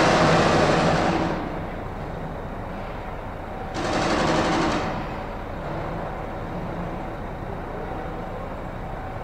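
Cars being driven off a ferry across the metal loading ramp, heard as two bursts of clattering rattle: one fades out about a second and a half in, and a shorter one comes near the middle. Underneath runs the steady low drone of the docked ship.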